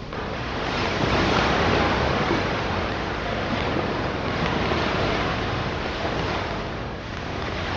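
Sea surf, waves breaking and rushing on the shore in a steady wash that swells about a second in.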